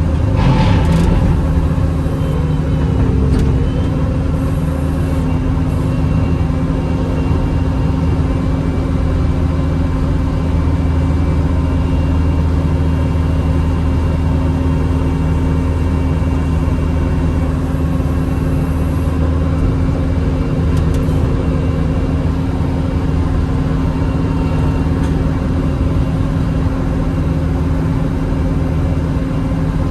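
Bobcat T650 skid steer's diesel engine running steadily under load while it drives a Brushcat 72-inch rotary cutter through grass and brush.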